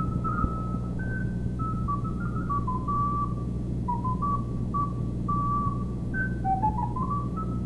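Solo recorder playing a quick, ornamented melody of short and held high notes, with a run of rising notes about two-thirds through. A steady low hum lies underneath.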